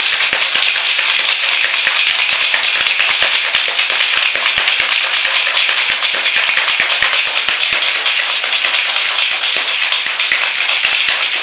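Ice rattling hard inside a metal cocktail shaker during a vigorous shake: a loud, continuous dense clatter of rapid clicks.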